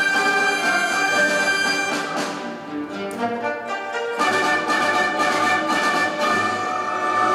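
A Chinese traditional orchestra of erhu and other bowed strings, plucked lutes, winds and percussion playing a loud full-ensemble passage. It thins out about two seconds in, then the full ensemble comes back in about four seconds in.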